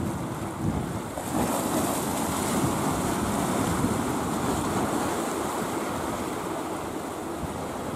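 Sea waves washing in a steady rush, with wind on the microphone; the wash swells louder about a second in.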